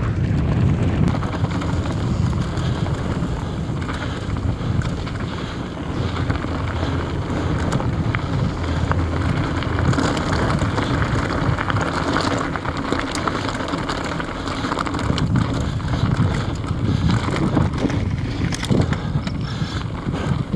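Wind rushing over a helmet camera's microphone, over the rumble of a mountain bike's tyres rolling on dirt and gravel at speed. Scattered sharp clicks run through it.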